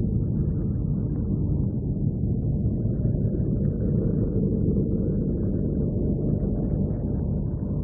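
Deep, steady rumbling drone with a faint flickering hiss above it, presented as NASA Voyager spacecraft data from Saturn's rings converted into sound.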